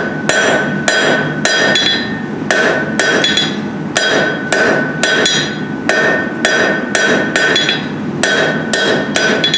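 Hand hammer striking a red-hot steel bar on an anvil, about two blows a second with a couple of short pauses, the anvil ringing at a steady pitch after each blow. The blows are drawing the hot bar down into square stock.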